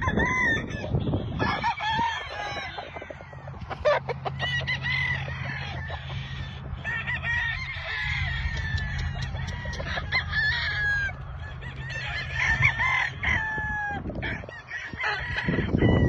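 Many roosters crowing over one another, near and farther off, with some clucking in between.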